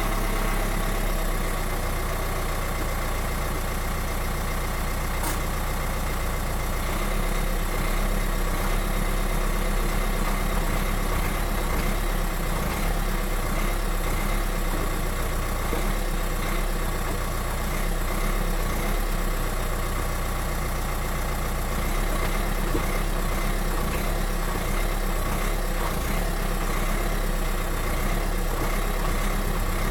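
2018 Dacia Duster 4x4 (115 hp) running, a steady engine and drivetrain sound with a constant whine held over it, the transmission noise the owner is documenting. The deep rumble underneath fades and returns a few times.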